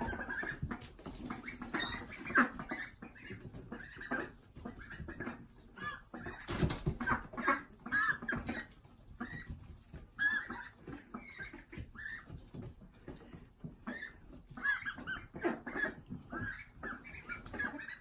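A flock of young ducks giving short, high calls over and over, many in quick succession.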